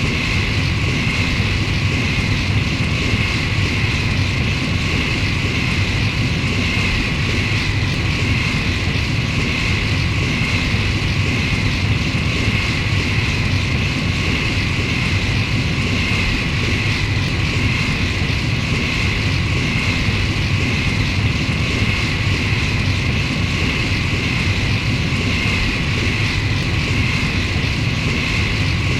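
Exterior engine sound effect of the Twilight, a G-9 Rigger starship: a steady, unchanging engine drone, a low hum under a higher whine, played as a loop.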